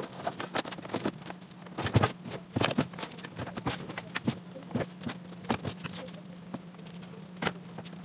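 Irregular clicks and knocks of hands handling and fitting the plastic frame and wiring of an opened washing machine, over a faint steady low hum.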